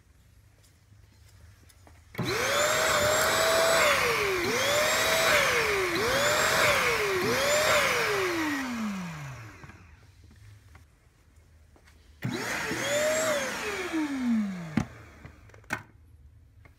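Electric dustpan's suction motor starting up with a rush of air, dropping in pitch and spinning back up three times as its trigger bar is released and pressed again, then winding down. About twelve seconds in it runs again briefly and winds down, followed by a knock and a sharp click.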